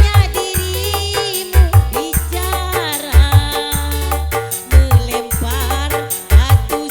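Dangdut music from an orgen tunggal single-keyboard setup, with a heavy low drum beat recurring about every second and a half and a wavering, gliding melody over it.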